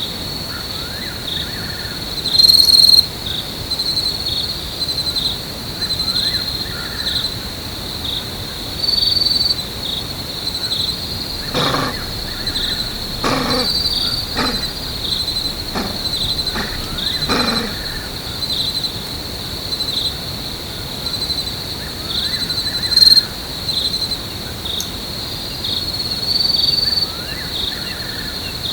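Continuous insect chorus in forest, a high steady buzz that pulses rapidly. Around the middle, an unseen animal gives a series of about six short, loud calls, and a few faint chirps come and go.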